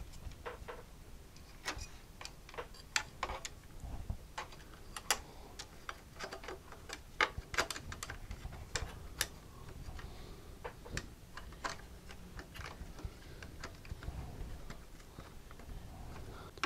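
Irregular light clicks and taps of a thin sheet-metal shield and wire bundle being handled and fitted into place inside an oscilloscope chassis.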